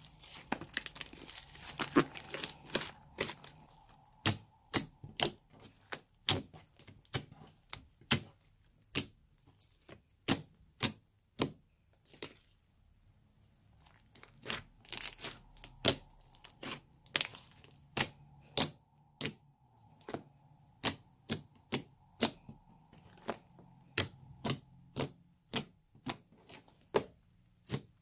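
Hands squeezing and pressing thick pink slime, making sharp wet clicks and pops, about one or two a second. There is a brief crackling run at the start and a short lull about twelve seconds in.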